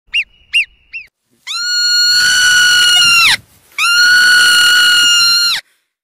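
Parrot calling: three short chirps, then two long, steady, high-pitched calls of about two seconds each, each dropping in pitch as it ends.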